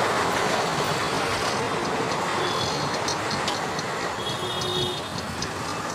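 Steady rumbling road and traffic noise from moving through a busy street, easing slightly toward the end. A few faint, short high tones sound in the middle.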